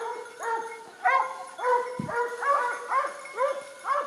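Several dogs barking over and over, their short barks overlapping in a continuous chorus.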